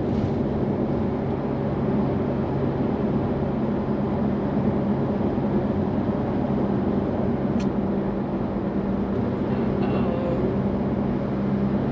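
Steady road and engine noise inside a moving vehicle's cabin at highway speed, with a low even drone.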